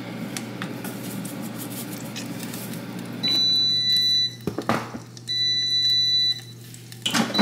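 An electronic beeper sounds two long, steady, high-pitched beeps about a second apart, each lasting about a second, over a steady low hum. A short knock falls between the two beeps.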